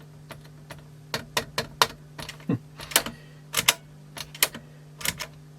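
Plastic cassette doors of a Sony TC-WE305 dual tape deck being worked open and shut, a string of irregular sharp plasticky clicks and clacks. A steady low hum runs underneath.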